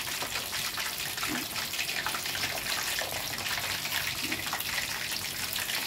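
Breaded chicken wings deep-frying in a wok of hot oil: a steady sizzle with fine crackling.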